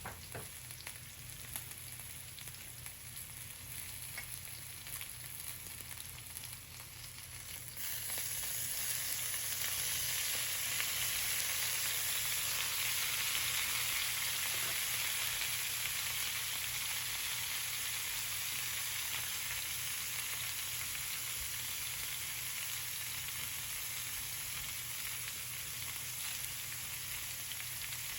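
Food frying in a pan of hot rendered chicken fat, sizzling steadily; the sizzle gets suddenly louder about eight seconds in and stays up.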